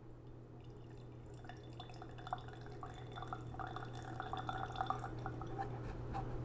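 Bourbon trickling and dripping from the spigot of a mini oak barrel into a glass. It starts about a second in, with many small irregular drips over a thin, steady trickle.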